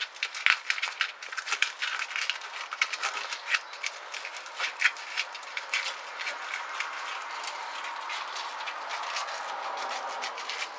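A sheet of 120 grit sandpaper being rolled up by hand: stiff abrasive paper crinkling with many quick sharp crackles, easing into a softer, steadier rustle in the second half.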